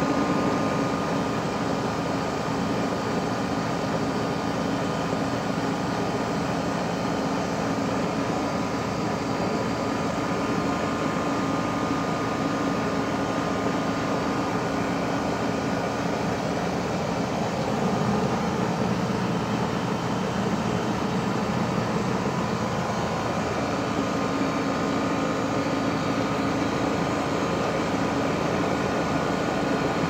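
2012 Rheem 4-ton heat pump outdoor unit running in cooling mode: compressor and condenser fan running steadily, a constant rush of fan air with a low hum and a few held tones.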